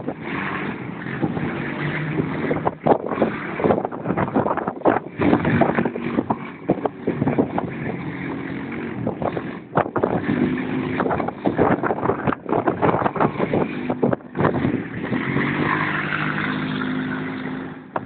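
Quad bike engine revving up and easing off again and again as the bike is thrown around, its pitch rising and falling. Wind buffeting on the microphone crackles over it.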